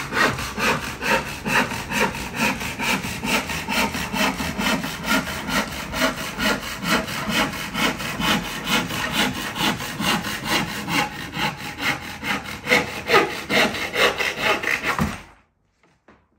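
Crosscut handsaw of about 7 or 8 teeth per inch cutting across the grain of a board in steady back-and-forth strokes, its knife-like teeth slicing the fibres cleanly and with little effort. The sawing stops abruptly near the end as the offcut comes free.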